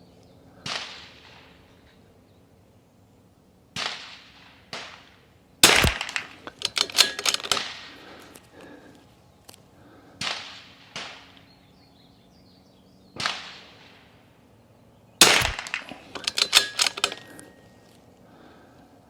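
Desert Precision Gunworks Rim-X .22 LR rifle fired twice, about ten seconds apart, each sharp shot followed by a quick run of metallic clicks from the action being worked. Several fainter single clicks fall between the shots.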